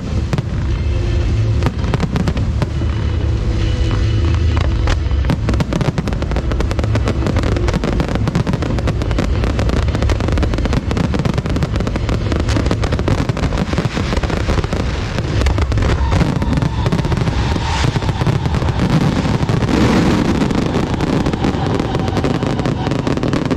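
Fireworks show: a dense, unbroken barrage of rapid bangs and crackles overlapping one another.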